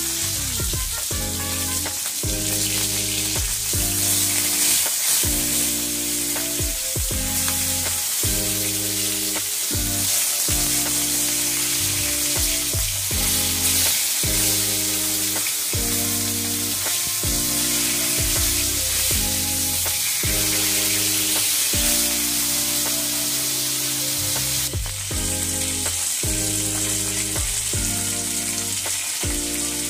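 Pieces of rohu fish sizzling steadily as they fry in hot oil in an aluminium karahi, turned now and then with a metal spatula. Background music with low held notes that change about every second plays under the sizzle.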